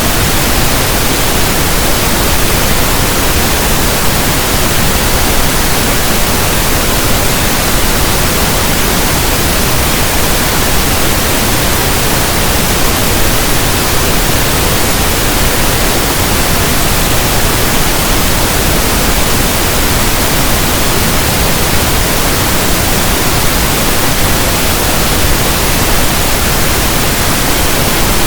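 Steady generated pink noise: an even hiss like a radio tuned between stations, with no tones, clicks or changes in it.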